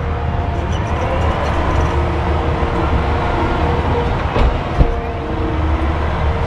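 Excavator's diesel engine running steadily with its hydraulics whining over the top as it digs and loads. Two short knocks come about four and a half seconds in.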